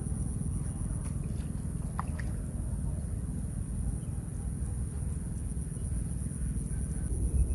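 Wind buffeting the microphone as a low, uneven rumble, with a steady high-pitched insect drone over it. A few faint ticks come between one and two seconds in.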